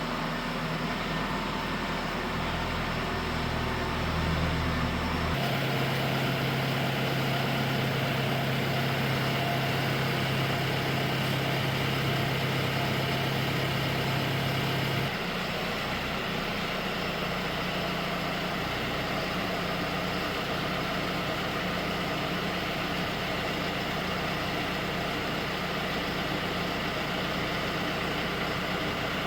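John Deere 6120E tractor's diesel engine running steadily at low speed. Its tone changes abruptly twice, about five seconds in and again about fifteen seconds in.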